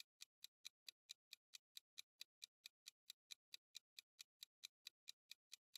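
Countdown-timer sound effect: faint, even clock ticking at about four to five ticks a second.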